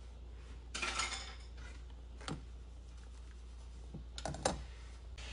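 Metal ladle clinking and scraping against a stainless steel soup pot while soup is ladled out: a burst of scraping about a second in, one click in the middle, and a quick few clinks near the end.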